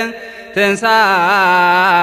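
A man's voice chanting an Eritrean Orthodox Tewahedo hymn (mezmur) in a wavering, melismatic line. The voice breaks off near the start, as for a breath, and comes back about half a second in.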